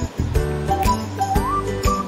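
Background music: a light melody with a short upward slide over a bass line and a steady beat.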